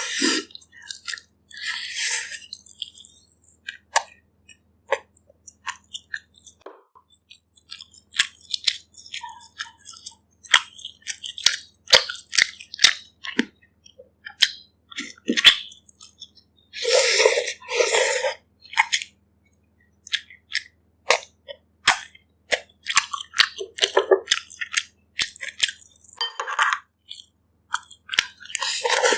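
Close-miked eating: chewing and biting with many short mouth clicks and smacks, as a person eats bak kut teh, pork ribs in herbal broth. Two longer, louder noisy sounds come about two seconds in and again about seventeen seconds in.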